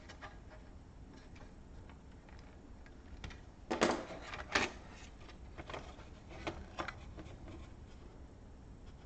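Scattered small clicks and taps of laptop parts and tools being handled, the loudest cluster about four seconds in, over a low steady hum.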